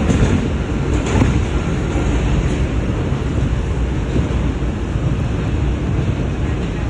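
New York City subway train running along elevated track, heard from inside the car: a steady rumble of wheels on rail, with a couple of clicks about a second apart near the start.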